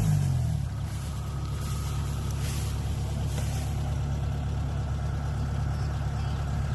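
Kubota DC70 combine harvester's engine dropping from high revs in the first half second, then running steadily at low speed.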